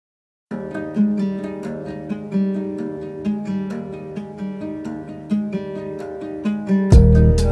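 Background music with a plucked acoustic guitar starts about half a second in. Near the end it gets louder as a fuller, bass-heavy part comes in.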